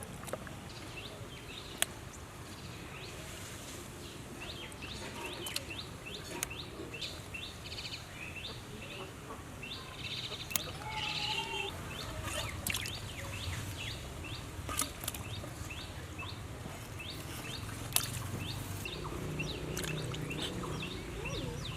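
Birds chirping over and over in short, quick downward-sweeping calls, with a few sharp clicks standing out above them.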